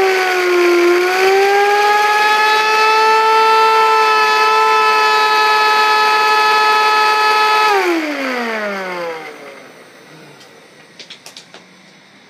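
Vacuum-cleaner motor spinning a CD at high speed, giving a loud, steady whine that dips slightly in pitch about a second in. About eight seconds in the power is cut and the motor winds down in a falling whine, leaving a few faint clicks near the end.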